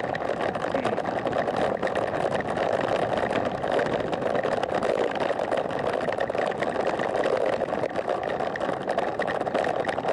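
Steady rush of wind buffeting a bicycle-mounted camera's microphone, mixed with road noise, while riding at about 20 km/h.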